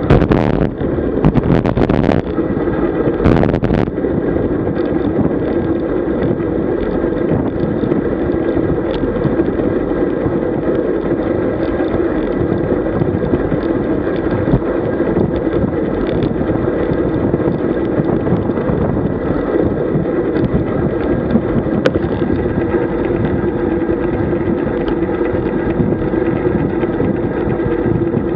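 Wind rushing over the microphone of a camera mounted on a road bike moving at about 33 km/h, with steady tyre-on-road noise. A few sharp knocks in the first few seconds.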